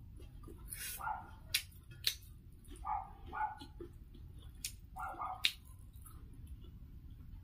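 A dog barking in the background: five short barks in three bunches, one, then two, then two. Sharp clicks come in between, over a steady low rumble.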